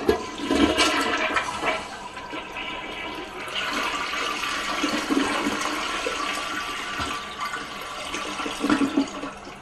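Floodwater rushing and gurgling, starting suddenly, with louder surges about a second in and again near the end.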